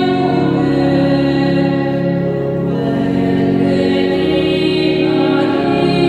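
Slow devotional hymn music of long, steadily held chords. The chords shift about four seconds in and again about five and a half seconds in.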